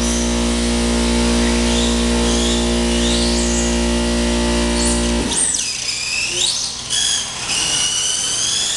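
Radio-controlled cars' electric motors whining, the pitch climbing and dropping repeatedly as they accelerate and slow around the track. A steady low hum cuts off suddenly about five seconds in.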